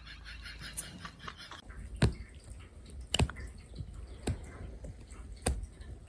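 Four sharp knocks, roughly a second apart, over a low steady background hum.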